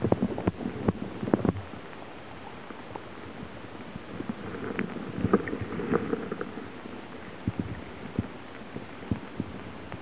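Small splashes and sloshing of river water around hands holding a brook trout in the current for release, with scattered drips and taps over a steady wash of water.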